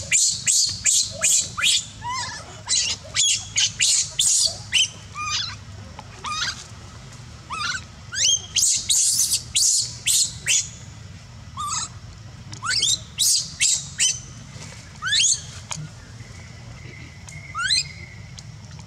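Newborn macaque crying: a run of short, high-pitched squealing calls, many sweeping sharply upward in pitch, several a second at first, then sparser with pauses toward the end.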